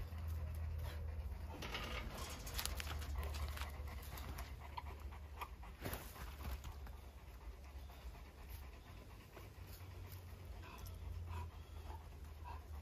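An animal panting in quick breaths, over a steady low rumble, with a sharp knock about six seconds in as the panther strikes the fence.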